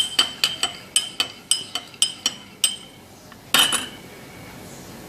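A metal spoon stirring a drink in a glass, clinking against the glass about five times a second, then one louder clink and clatter about three and a half seconds in.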